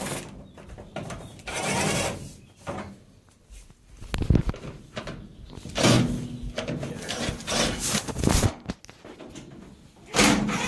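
Clips and console panel of a Whirlpool electric dryer being squeezed and worked loose by hand: a series of separate clicks, knocks and scraping noises.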